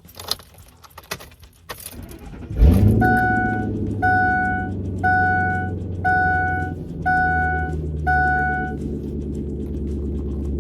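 Keys rattling in the ignition, then the 2002 Ford F-250's 5.4 L Triton V8 cranks briefly and fires about two and a half seconds in, settling into a steady cold-start high idle. A warning chime beeps six times, about once a second, over the idling engine.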